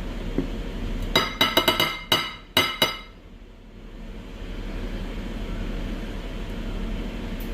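Tableware clinking: about seven sharp, ringing clinks in quick succession, starting about a second in and lasting some two seconds.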